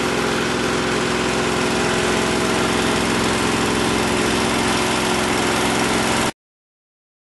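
A water-hauling truck's engine and pump run steadily while water is pumped through hoses into an underground cistern. The sound cuts off suddenly near the end.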